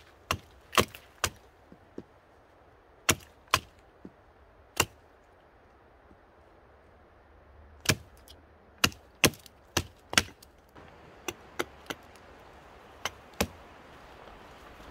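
Sharp chopping strikes of a tool on wood, about fifteen blows in irregular clusters, with a pause of about three seconds in the middle.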